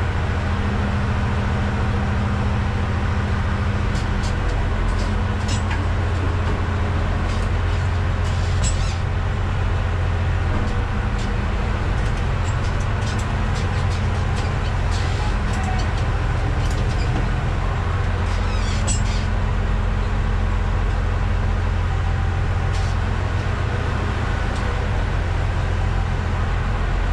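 Bizon Rekord combine harvester's diesel engine running steadily, heard from inside the cab, with light rattles and clicks from the machine.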